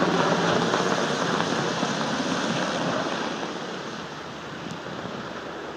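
UH-60 Black Hawk helicopter flying away, its rotor noise fading steadily into a dull rushing.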